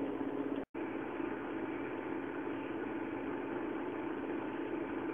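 Steady low hum with an even hiss, the background noise of a home-video recording. It cuts out completely for an instant under a second in.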